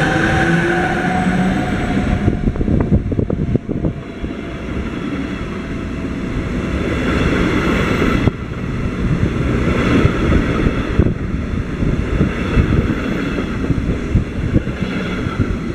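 CFL electric locomotive and double-deck passenger coaches rolling past close by. A whine falls in pitch near the start, then a steady loud rumble of wheels on rail with rapid clatter continues as the coaches go by.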